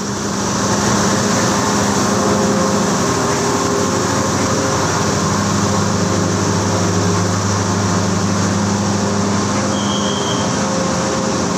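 Passenger train moving along a station platform: a steady loud rumble of the carriages with a low hum underneath, and a short high squeal about ten seconds in.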